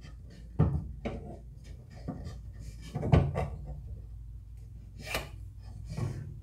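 Metal combination square being slid and set against the edge of a wooden board for marking out: light rubbing with three short knocks, about half a second in, at about three seconds and at about five seconds, over a steady low hum.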